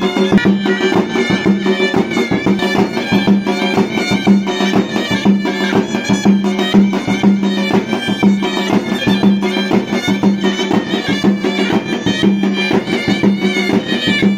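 Traditional folk music: a reedy wind instrument playing a melody over a steady drone, with a busy beat.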